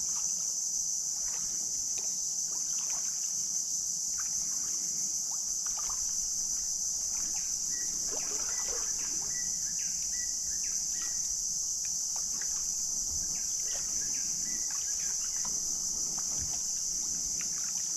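Mangrove swamp ambience: a steady, high-pitched drone of insects runs throughout, over scattered soft clicks and the drips and light splashes of kayak paddles. A few short, high chirps come in the middle.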